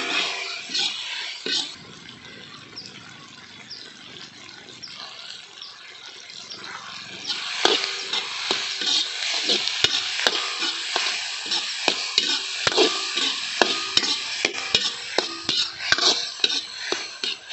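Sliced onions frying in oil in a large black wok, sizzling, while a metal slotted spatula stirs and scrapes the pan. The scraping strokes are sharp in the first second or so, drop to a softer sizzle, then come back louder from about halfway, roughly one or two strokes a second over a stronger sizzle.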